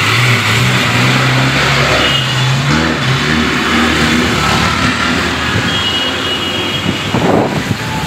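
A large road vehicle's engine running close by as it moves past, a low hum that fades after about three seconds, over a steady hiss of traffic on a wet road.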